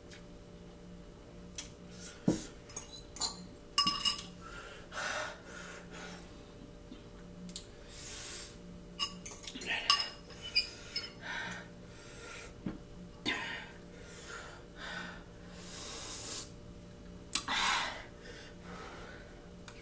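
Eating spicy noodles from a bowl with a fork: scattered clinks and scrapes of the fork against the bowl, between heavy breaths from the chili heat.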